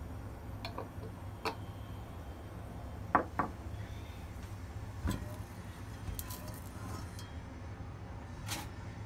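Wok handled on a glass induction cooktop with oil heating in it: scattered light clicks, two sharp knocks a little after three seconds in, and a short scrape near the end as the wok is tilted to swirl the oil, over a steady low hum.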